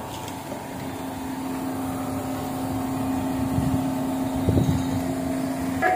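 A steady engine hum with a held low tone, growing gradually louder, like a motor vehicle running close by.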